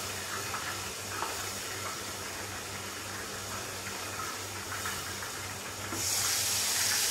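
Chicken frying in oil in a covered frying pan, a steady sizzle. About six seconds in the lid is lifted and the sizzle becomes suddenly louder and brighter.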